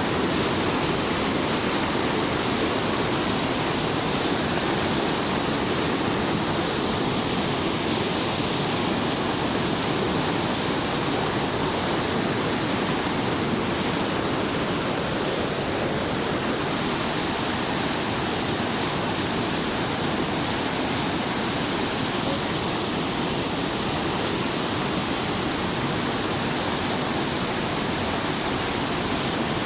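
Water rushing steadily along a canal running high, swollen by days of rain.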